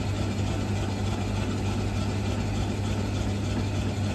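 Electric shaved-ice (kakigori) machine running: a steady motor hum with the even hiss of ice being shaved into a bowl.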